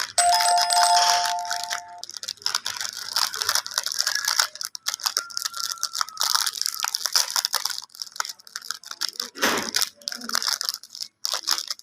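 Plastic snack-cake wrapper being handled and torn open, a dense run of irregular crinkling crackles. A short steady tone sounds at the start, and a heavier thump comes about nine and a half seconds in.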